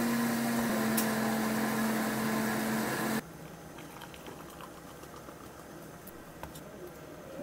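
Ice machine running for about three seconds, a steady motor hum over a rush of noise, then cutting off abruptly. After it, sparkling water is poured over ice into a plastic cup, quiet and fizzing with small ticks.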